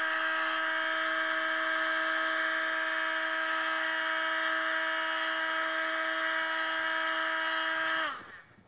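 Electric heat gun running with a steady whine while drying freshly sprayed paint. It is switched off near the end, its pitch falling quickly as the fan winds down.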